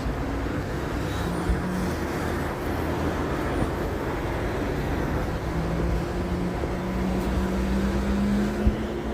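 Road traffic: steady tyre and engine noise of vehicles driving past, with an engine tone rising in pitch near the end as one passes.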